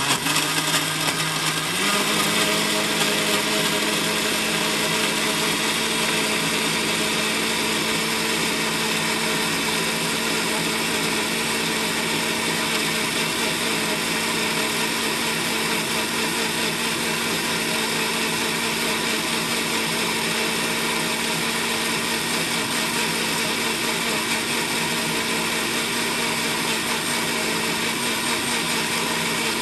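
Countertop blender running at full speed, churning milk, banana and yogurt. Its motor winds up to speed over about the first two seconds, then runs steadily.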